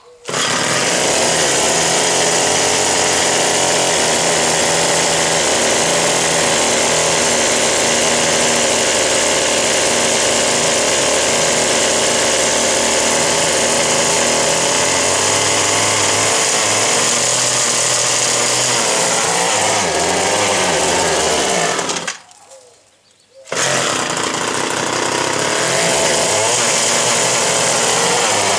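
O&R 1 hp two-stroke engine of a 1958 Little Wonder hedge trimmer running, its speed shifting around the middle as the carburettor is adjusted. It cuts out abruptly near the end and is running again a second and a half later.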